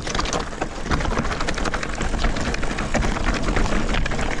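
Mountain bike tyres crunching and clattering over loose stones on a rocky descent, a dense, continuous crackle of small impacts, with wind rumbling on the microphone underneath.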